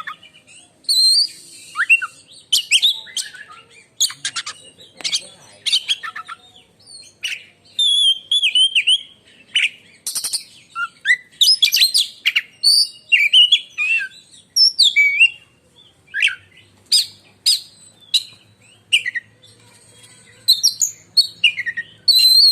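Oriental magpie-robin (kacer) singing a loud, shrill, varied song of quick whistled phrases mixed with sharp, abrupt notes, in bursts with short gaps between them.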